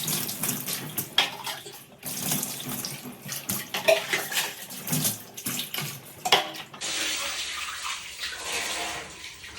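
Water splashing and sloshing with scattered knocks and scrapes as washing-machine parts are washed. About seven seconds in, a steady stream of running water takes over.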